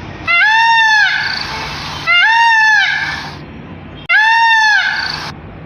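An animal's loud pitched cry, repeated three times about two seconds apart, each call rising then falling in pitch and lasting under a second.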